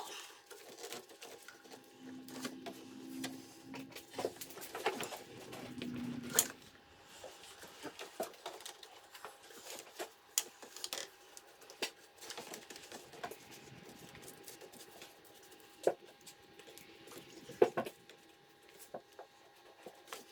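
Scattered light clicks, taps and knocks of hand work on engine-bay parts, from a man removing the factory air intake. A faint steady hum sits under them.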